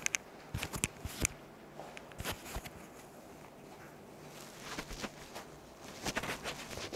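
Scattered soft clicks and rustles of hands fiddling with cloth and small objects close to a clip-on microphone, in a few short clusters with a quieter stretch in the middle.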